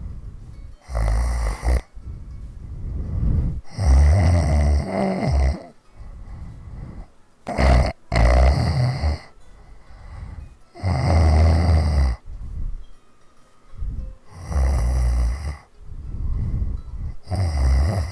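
A woman snoring hard, with about six loud snores coming roughly every three seconds and quieter breathing between them.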